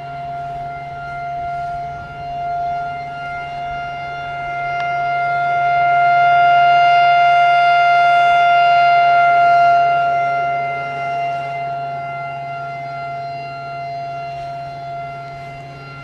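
Federal Signal Thunderbolt 1000B siren sounding a steady full-alert tone, growing louder about five seconds in as its rotating horn swings to face the listener and fading as it turns away. It runs without its blower, which sounds locked up.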